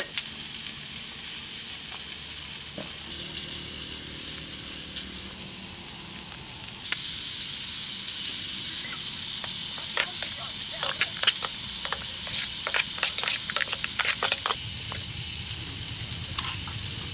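Food frying in a hot pan: a steady sizzle, with a burst of spattering pops from about ten to fourteen seconds in.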